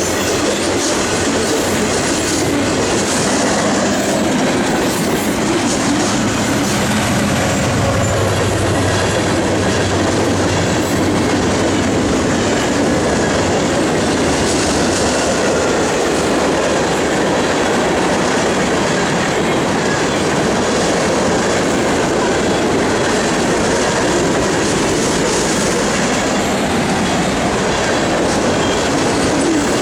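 Union Pacific mixed freight train's cars rolling past at a grade crossing, a steady loud rumble with wheels clacking over the rail joints.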